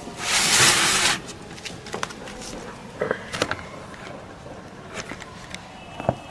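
Handling noise from a vintage valve radio being moved about. A loud rustling burst of about a second comes right at the start, followed by scattered light clicks and knocks.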